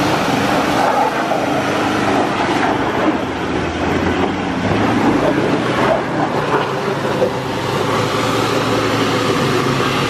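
4x4 truck engine running hard under load, a steady loud rumble, as the stuck vehicle tries to gain traction.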